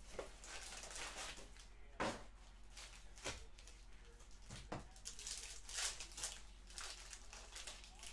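Faint scattered crinkles, rips and taps of a sealed trading-card hobby box and its foil packs being opened and handled.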